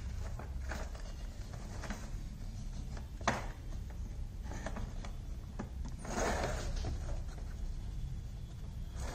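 Light handling noises from the parts of a laser-cut bird house kit: small clicks and taps, one sharper click about three seconds in and a short rustle around six seconds, over a steady low hum.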